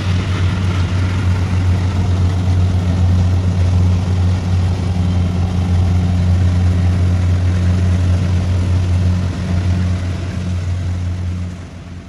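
Kubota DC-70X rice combine harvester running steadily as it cuts and threshes, giving a constant low engine hum. It fades away near the end.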